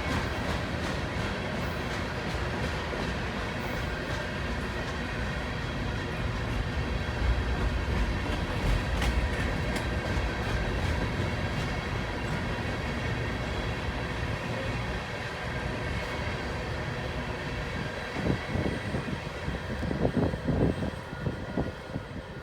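Freight train cars rolling past: a steady rumble of steel wheels on rail with scattered clicks, and a few irregular low gusts near the end.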